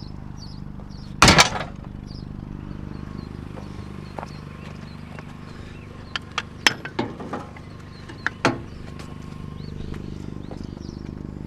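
Scrap metal being handled: one loud clank about a second in, then a string of lighter knocks and clinks near the middle, over a steady low hum.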